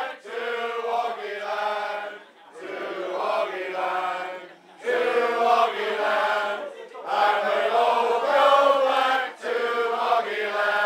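A group of people singing together unaccompanied, a pub-style sing-song. They sing in phrases of about two seconds with short breaks between.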